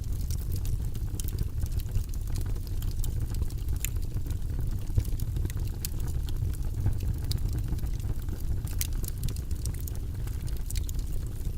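Wood logs burning in a fireplace: a steady low rumble of flames with frequent, irregular crackles and pops.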